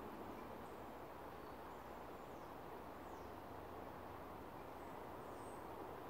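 Faint woodland ambience: a steady low hiss, with several faint, high, short bird chirps and falling whistles scattered through it.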